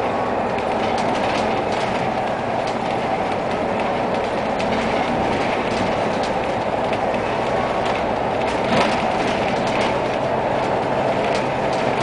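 Onboard running noise of a moving road vehicle: a steady, rattly rumble of engine and road. Short clicks run through it, with one louder knock about nine seconds in.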